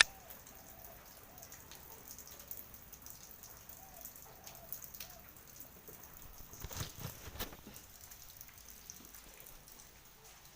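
Light rain pattering: scattered drops ticking on a surface, with a few louder taps a little past halfway.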